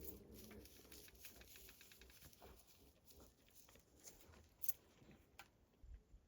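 Faint sounds of spotted hyenas feeding on a carcass: scattered clicks and crackles of tearing and crunching, with a short low animal call in the first half-second.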